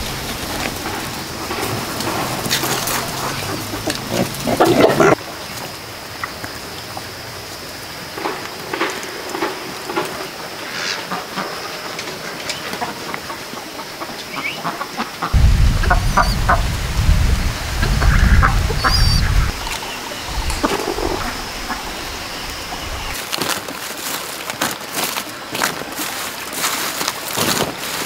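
Farmyard poultry clucking and calling in scattered short calls, with a loud low rumble lasting about five seconds just past the middle.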